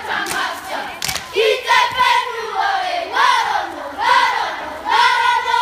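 A group of school children chanting a haka in unison, a string of loud shouted phrases, each rising and then falling in pitch. A sharp smack sounds about a second in.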